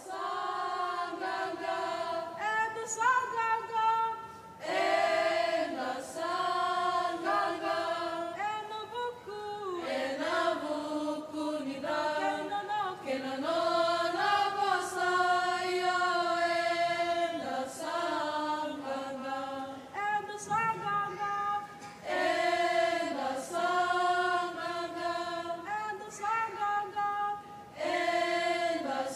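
A group of young women singing together unaccompanied in harmony, in long held phrases with a few short breaks between them.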